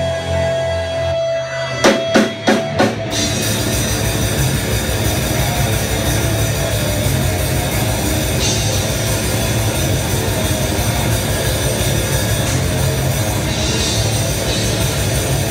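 Metal band playing live. A held, droning intro breaks off about two seconds in into four loud hits, then the full band comes in with guitars and fast drumming.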